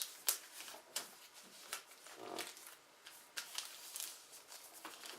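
A sheet of paper being folded and creased by hand: irregular rustles and crackles of the paper.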